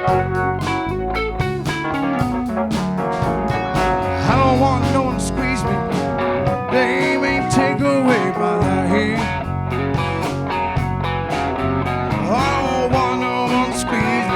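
A guitar-led band playing a blues-country song with a steady drum beat, in a passage between sung lines.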